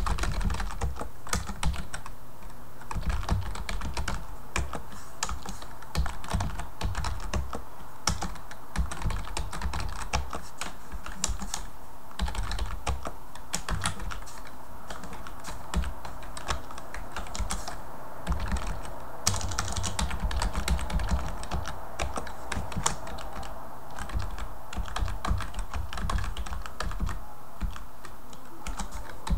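Typing on a computer keyboard: runs of quick key clicks with brief pauses between them.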